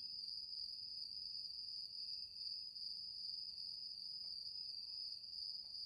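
Crickets chirring in a faint, steady high-pitched drone, with a few faint small clicks.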